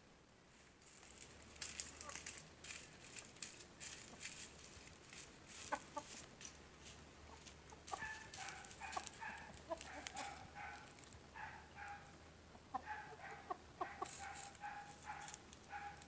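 Cockerels pecking at a wooden stump with quick, light taps, then clucking in short, repeated calls from about eight seconds in.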